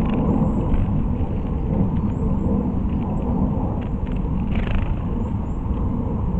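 A steady low rumble that rises and falls, with a brief faint rustle about four and a half seconds in.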